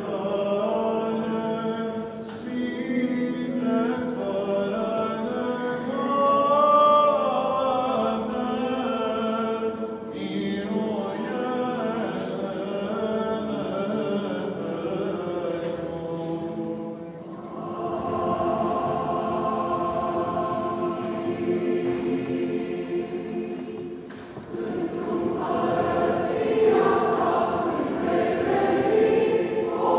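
Orthodox liturgical chant sung by cantors at a lectern. Long held notes run in phrases, with brief breaks about 10, 17 and 24 seconds in.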